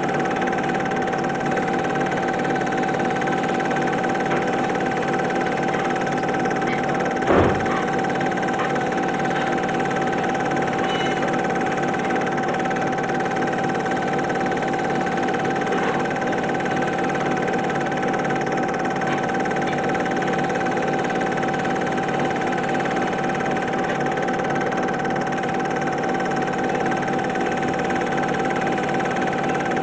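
Super 8 film projector running, a steady motor hum and whir. There is a single knock about seven seconds in.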